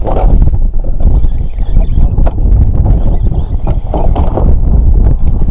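Wind buffeting the microphone in a loud, steady low rumble, with a few short clicks.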